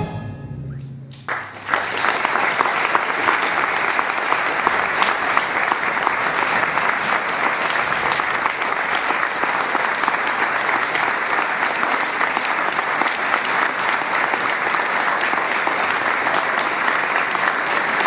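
The last low note of a fanfare band dies away, then audience applause breaks out about a second in and carries on steadily.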